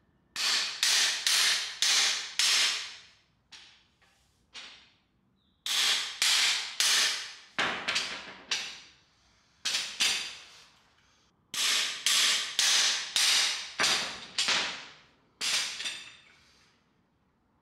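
Hammer blows on a cam bearing installer bar, driving a camshaft bearing into the cam tunnel of an LS engine block. Sharp metallic strikes about two a second, each ringing briefly, come in runs of five or six with short pauses and a few lighter taps between.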